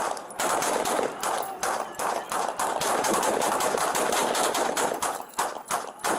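Deputies' gunfire: a rapid volley of many shots fired close together, thinning to a few separate shots near the end.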